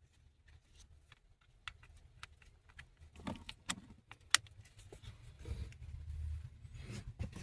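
Scattered light clicks and rattles of hands working the blend door actuator and its wiring connector under the dashboard, with one sharp click a little over four seconds in.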